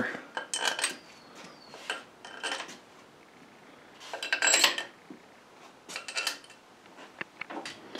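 Intermittent metallic clinks and rattles of steel head bolts and a hand wrench being set into an LQ9 V8's cylinder head, in about six short bursts.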